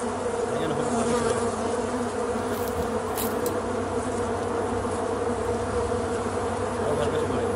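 Wasps buzzing around their hanging paper nest: a steady, dense drone that wavers slightly in pitch.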